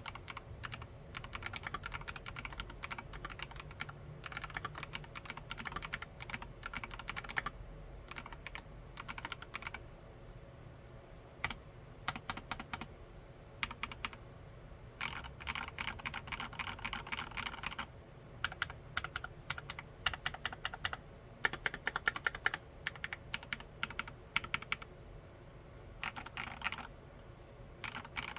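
Typing on a Monstargear Alu XO v3 mechanical keyboard with Keychron K Pro Mint switches: runs of fast keystrokes broken by short pauses and a few single key presses.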